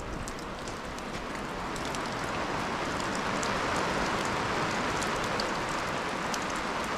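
Steady rain falling, with scattered drops ticking close by. It grows a little louder over the first couple of seconds, then holds steady.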